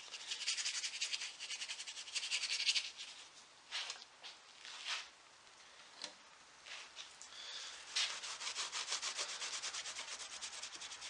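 A brush scrubbing quickly against carved oak as dark wax is worked into the crevices with its tip, in rapid repeated strokes. After a sparser few seconds with odd scrapes and clicks, a rag rubs briskly over the carving, wiping the wax off the high spots.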